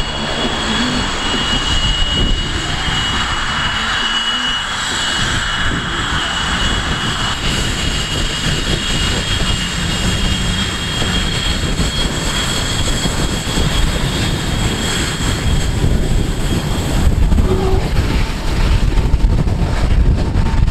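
RAAF F/A-18 Hornet jets taxiing at low power, their General Electric F404 turbofans giving a steady high-pitched whine over a low rumble. The whine fades and the rumble grows louder in the last few seconds.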